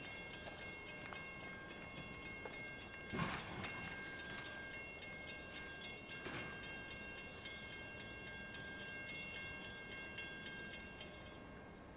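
Railroad grade-crossing warning bell ringing with rapid, evenly repeated ringing strikes, sounding as a train approaches; it stops about eleven seconds in. Two brief swells of noise pass under it, about three and six seconds in.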